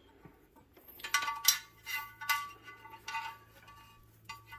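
Steel cable being fed through the metal frame of a Body Solid weight machine, clinking and rattling against the steel tubing in a few ringing bursts from about a second in, then lighter clicks.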